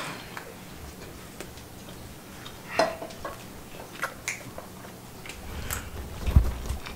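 Soft mouth clicks and chewing noises of a man eating hot wings, with a sharper click about three seconds in and a low thump near the end.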